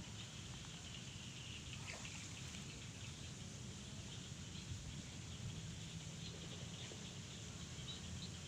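Quiet outdoor ambience: a faint steady low hum with scattered faint high chirps and a few light clicks.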